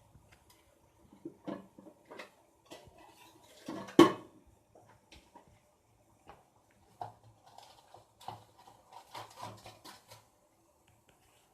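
Kitchen utensils and cookware being handled: scattered light clinks and taps, with one loud knock about four seconds in and a run of small clicks near the end.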